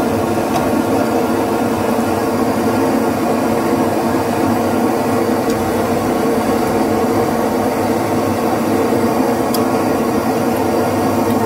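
A pot of sauce at a rolling boil on a stove, giving a steady rushing hum with no change in level.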